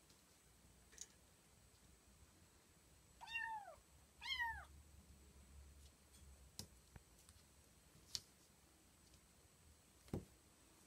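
A kitten gives two short, high meows about a second apart, each falling in pitch at the end. A few light taps sound here and there, the last and loudest near the end.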